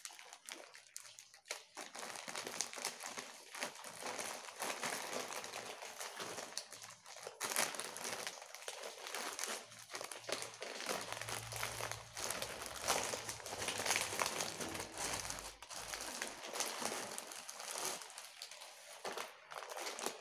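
Plastic courier mailer bag crinkling and rustling irregularly as it is opened by hand, with the clothing in its clear plastic packet being pulled out of it.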